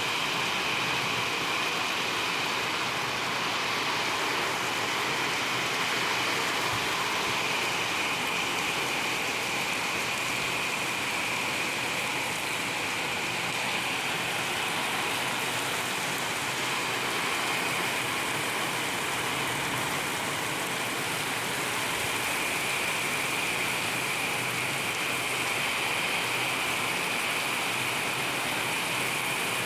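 Rain falling steadily and evenly.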